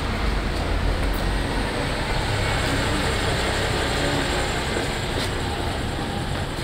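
Steady road-traffic noise: a low vehicle rumble under an even hiss, heaviest in the first second or so.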